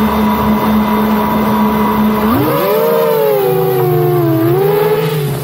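FPV racing quadcopter's brushless motors and propellers heard close up from the drone itself: a steady idle hum, then about two and a half seconds in the pitch sweeps up and wavers as the throttle comes up and the drone lifts off.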